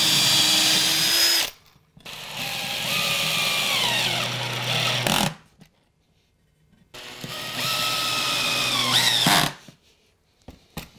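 Makita cordless drill-driver running into timber in three bursts, its motor whine dropping in pitch near the end of the second and third bursts as it meets load, then a few faint clicks.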